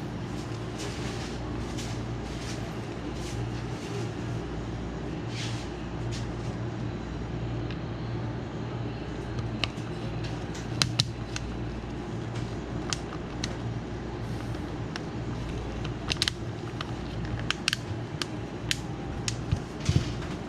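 Steady low mechanical hum, like a fan or small motor running, with sharp small clicks and taps scattered through the second half.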